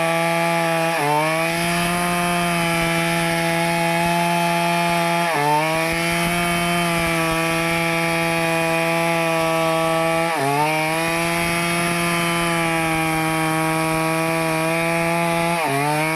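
Stihl two-stroke chainsaw running at high revs, cutting teak wood. Its engine pitch holds steady, then dips briefly and climbs back four times, about every five seconds.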